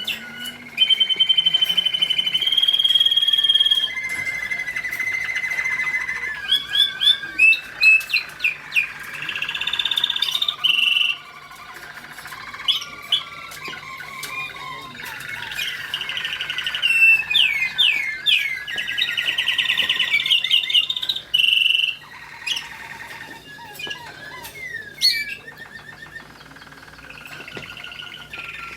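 American Singer canaries singing a run of varied tours: long even trills held on one pitch, fast rolling passages and rapid up-and-down sweeping notes, with short breaks between phrases. This is the song that is being judged for show.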